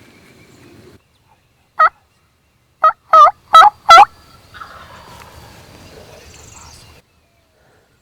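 Five loud, close turkey yelps over about two seconds, each note breaking downward in pitch and back up, the last three longest. Faint rustling follows.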